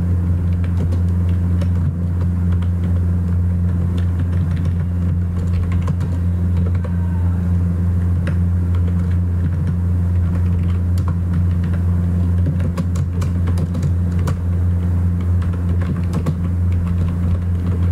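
Computer keyboard typing in scattered keystrokes over a loud, steady low hum.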